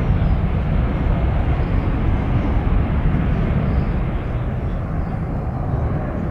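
Boeing C-17 Globemaster III's four Pratt & Whitney F117 turbofans at takeoff power as it climbs away after takeoff: a steady, deep jet noise that slowly fades.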